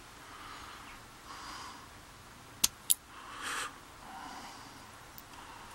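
A person breathing through the nose close to the microphone in several soft puffs, with two sharp metallic clicks about a quarter second apart a little under three seconds in, as a tool works on the Yale rim cylinder's plug.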